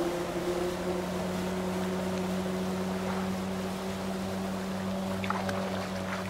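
Small open boat's outboard motor running steadily across the water: a low, even drone with a light wash of water. Its higher tone fades about a second in, and a few faint knocks come near the end.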